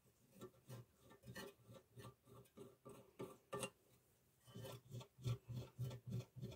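Faint handling sounds from a gumball machine's red sheet-metal base: a string of soft rubs, scrapes and light taps, a couple or so a second, as parts are fitted into it by hand, with a brief pause about four seconds in.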